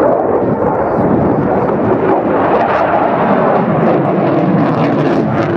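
Eurofighter Typhoon's twin jet engines roaring steadily during a flying display.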